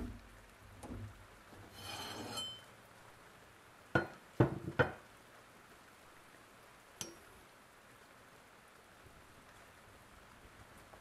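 Sandblasted steel axe head handled and set down on a wooden table: three sharp clinks and knocks in quick succession about four seconds in, and one lighter click about seven seconds in.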